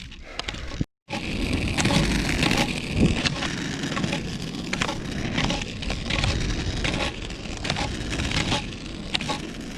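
Roller skis rolling on the road, a steady gritty rolling noise with many sharp clicks from the ski pole tips striking the pavement. It starts abruptly after a cut about a second in.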